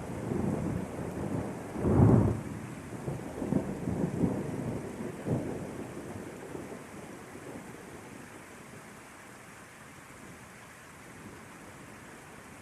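Thunder rolling over steady rain: the loudest rumble comes about two seconds in, with smaller surges after it, and the thunder dies away by about the middle, leaving the even hiss of rainfall.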